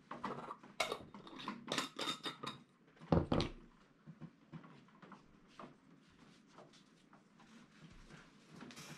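Glass jar and brush clinking and knocking as they are handled and the jar is closed, with one heavier thump on the workbench about three seconds in. Lighter handling taps and rustles follow.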